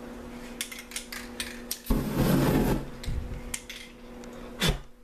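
A few sharp clicks, then wet spray paint on a canvas catching fire with a sudden whoosh about two seconds in, the flames flickering after it. A sharp knock near the end.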